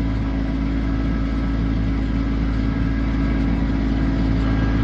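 Tractor diesel engine running steadily at a constant pitch.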